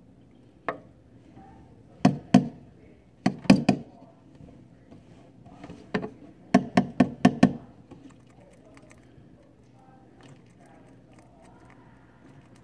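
Sharp knocks and taps of a hard cricket carrier tube being handled and tapped against the driftwood of a reptile tank, in scattered single knocks and pairs, then a quick run of five about six and a half seconds in.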